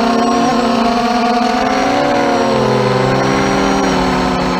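Brushless motors and propellers of a mini FPV quadcopter whining in flight, several tones at slightly different pitches gliding up and down and crossing as the throttle changes.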